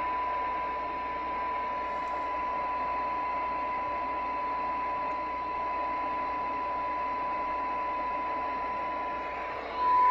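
Tram D-80 CB radio's speaker playing a steady test tone from a signal generator, with receiver hiss around it: the weak modulated signal used to read SINAD while the receive section is aligned for best sensitivity. It gets louder near the end.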